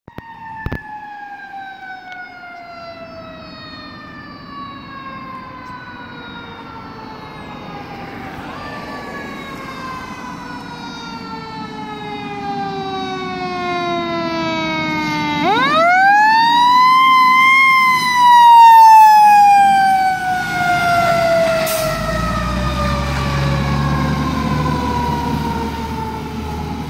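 Federal Q2B mechanical siren on a fire engine, winding down in a long slow falling wail. About halfway through it is spun back up quickly to a peak, then left to coast down again. The truck's engine rumble comes up underneath as it passes close near the end.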